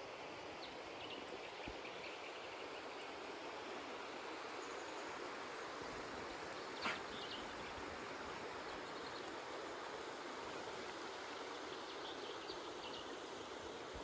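Steady outdoor background noise in open country, with a few faint high chirps and one sharp click about seven seconds in.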